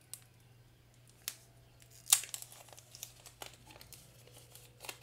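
Thin clear plastic wrapping crinkling in the hands as the smart band is handled and pulled from its protective sleeve, starting with a sharp crackle about two seconds in and going on as irregular crackles. A couple of light clicks come before it.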